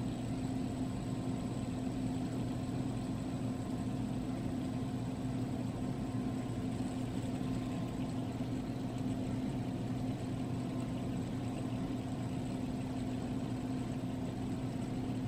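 Steady low mechanical hum with a faint high whine above it, unchanging throughout.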